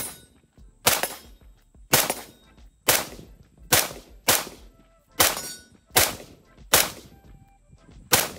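Ruger AR-556 rifle in 5.56 mm firing single semi-automatic shots at a steady pace. There are about ten sharp shots roughly a second apart, each trailing off briefly.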